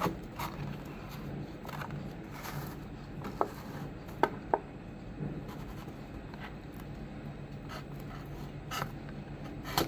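A thin blade scraping and slitting along the sealed edge of a plastic blister pack, prying it off its cardboard backing, with a few sharp plastic snaps near the middle.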